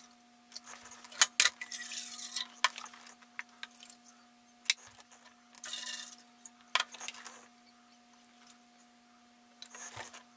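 Water being poured, first from a jug into a measuring cup and about five seconds in from the cup into a nonstick saucepan, with clicks and knocks as the containers are handled and set down.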